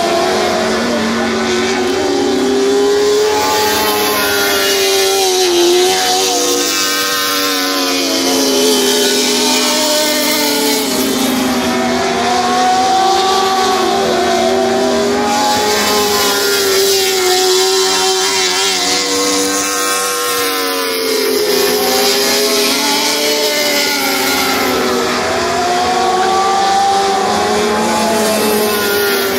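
Several lightning sprint car engines racing around a dirt oval, revving high, their pitch rising and falling every few seconds as the cars accelerate down the straights and lift for the turns.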